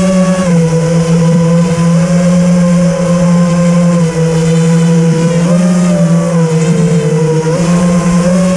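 Four brushless motors of an FPV quadcopter (EMAX RSII 2206 2700KV) and their propellers humming steadily in a low hover, heard from the drone's own onboard camera. The pitch briefly rises and falls back a few times as the throttle is adjusted, around the start, mid-way and near the end.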